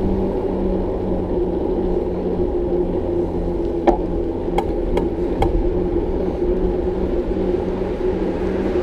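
Steady low rumble of a bicycle being ridden on the road, with four short sharp clicks or rattles a little under halfway through.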